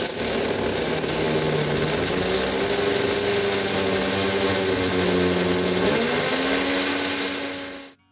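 Corded electric drill running continuously as it bores into the wall, its pitch shifting with the load and stepping up about six seconds in. It cuts off suddenly near the end.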